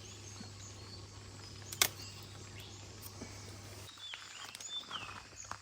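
A single sharp snap about two seconds in, a papaya leaf stalk being broken off in pruning, with a fainter snap about a second later. Near the end come a few short falling bird chirps over the faint outdoor background.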